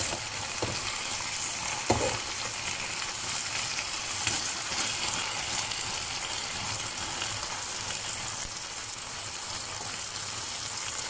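Beef fillet pieces sizzling steadily as they fry in a non-stick pan, with a couple of utensil knocks against the pan in the first two seconds as the pieces are turned. The meat is cooked through and has taken up its juices.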